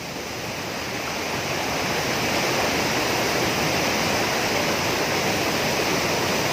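Waterfall pouring into a rock pool: a steady rushing of falling water that grows louder over the first two seconds, then holds even.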